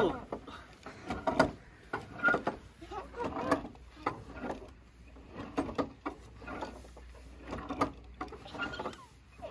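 Wooden bench swing on metal chains creaking and clinking as it sways back and forth, in short irregular bursts, with faint voices in the background.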